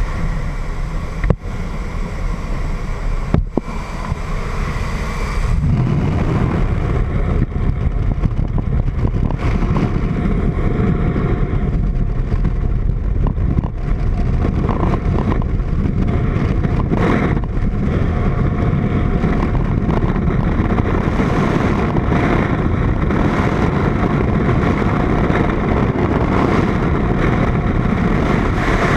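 Freefall wind rushing over a helmet-mounted action camera's microphone: a dense, steady rush that gets louder about five seconds in. Before that, a thinner aircraft engine and slipstream noise comes through the open door, with two knocks in the first few seconds.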